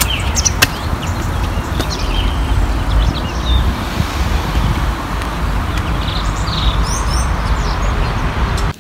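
Wind buffeting a phone's microphone, a loud uneven rumble, with a few high bird chirps in the middle and toward the end.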